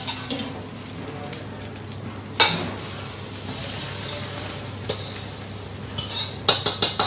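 Metal ladle scraping and clanking against a steel wok as fried rice is pushed out into a foil tray, with the hot wok sizzling. A sharp clang about two and a half seconds in is the loudest sound, another comes near five seconds, and a quick run of knocks follows near the end, over a steady low hum.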